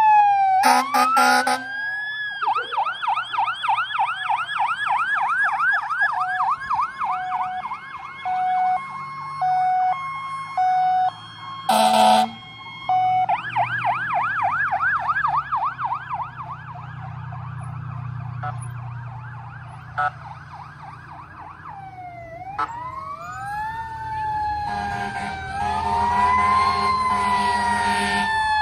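Fire engine sirens passing close by. A wail sweeps down, then a fast yelp runs for several seconds with short loud horn blasts at about a second in and again near the middle. A diesel truck engine rumbles as a fire engine goes past, and wailing sirens rise and fall near the end.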